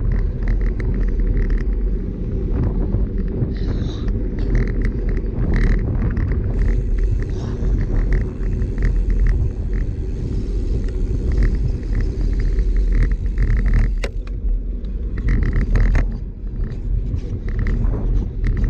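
Wind buffeting and road vibration picked up by a handlebar-mounted action camera on a road bike riding over asphalt: a steady low rumble with frequent small clicks and rattles from the bike.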